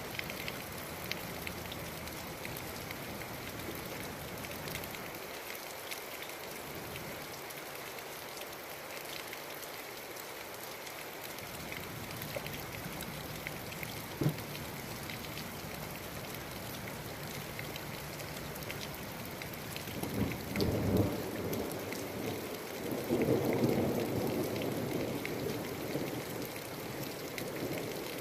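Steady rain falling, with thunder rumbling twice in the last third, the second roll longer than the first. A single sharp tap sounds about halfway.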